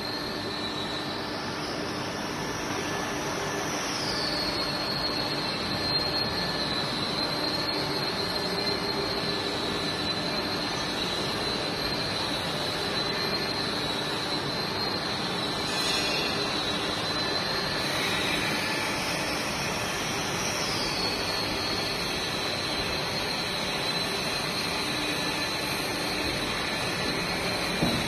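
EYH 4000 two-dimensional drum mixer running: a steady mechanical noise with a high whine that rises in pitch and settles back down twice.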